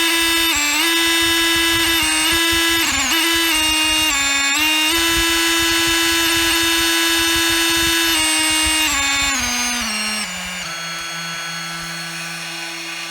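Milwaukee M12 brushless oscillating multi-tool running, its buzz stepping up and down in pitch as the speed setting is changed, then dropping to a lower speed about ten seconds in. The motor runs normally after its failed motor controller chip was replaced.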